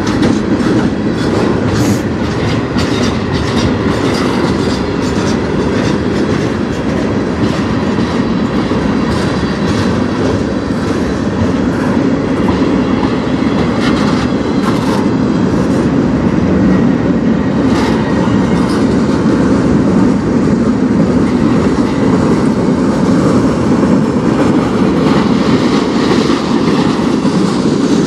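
Cars of a mixed manifest freight train rolling past close by: a steady, loud rumble of steel wheels on rail, with scattered clicks and clanks from the wheels and couplers.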